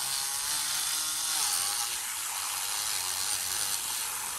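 Zulay single-speed, AA battery-powered handheld milk frother running, its wire whisk spinning steadily in milk in a mug with a high, even whir and churn, while coffee is poured in from a French press.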